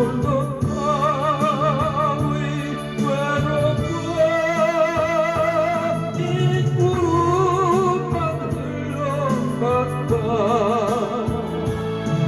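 A solo singer holding long notes with a wide, even vibrato, accompanied by an electronic keyboard.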